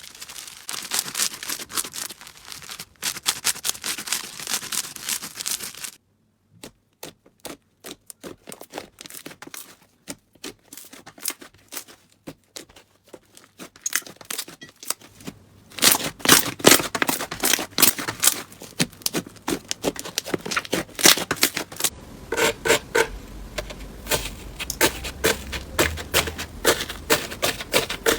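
Slime being squeezed and poked by hand, making dense crackling and clicking. The clicks thin to sparse single pops with silence between for several seconds in the middle, then turn dense again, with a low hum joining near the end.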